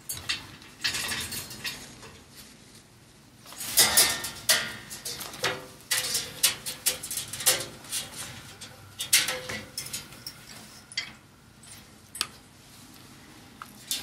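Cockatoos moving about on wooden perches and stands: an irregular string of clicks, taps and knocks from beaks and feet on wood and metal, busiest in the middle.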